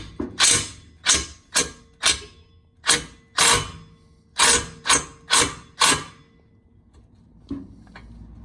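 Impact wrench fired in about ten short bursts over six seconds against an exhaust bolt, then stops; the seized bolt is not breaking loose.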